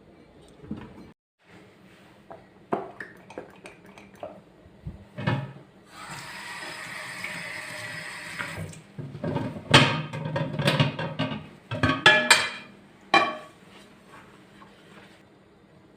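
Kitchen sink work: scattered knocks, then a tap running for about three seconds near the middle, followed by a run of dishes and utensils clattering against each other.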